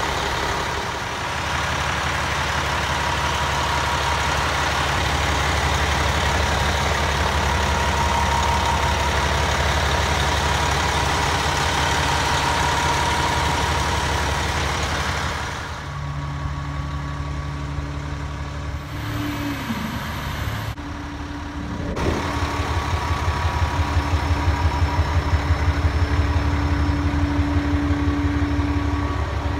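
Cummins ISM inline-six diesel engine of an International 7600 dump truck idling steadily. A little past halfway the sound thins and briefly glides in pitch, then runs louder with an even pulsing beat.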